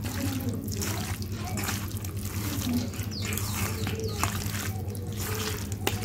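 Hands squishing and kneading raw chicken pieces and potato chunks in a wet spice paste in a stainless steel bowl: irregular wet squelching as the meat is marinated.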